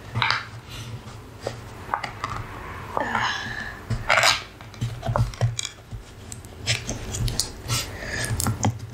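Fingernails picking and scratching at the sealed foil lid of a plastic dessert cup: a run of small clicks, ticks and crinkles as the lid resists being peeled open.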